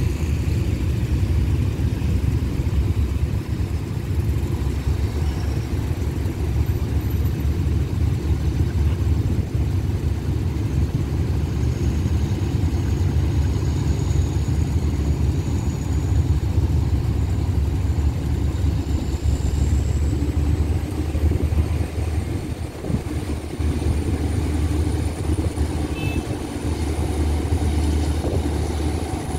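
Motorcycle and road-traffic engines idling, a low steady rumble, with a faint high whine slowly rising in pitch through the second half.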